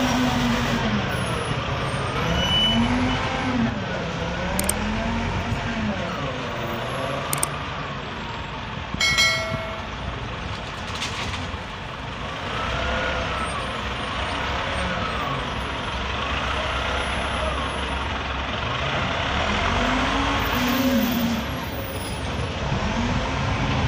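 Caterpillar 950B wheel loader's diesel engine working under load, its pitch rising and falling over and over as it revs up and down, with a short metallic clank about nine seconds in.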